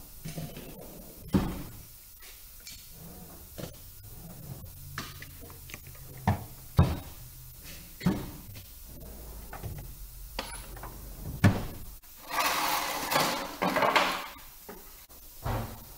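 Steel tool chest drawers sliding open and shut, with sharp metallic knocks and clanks as tools are picked out. Near the end comes the loudest sound: a hissing rush lasting about two seconds, in two surges.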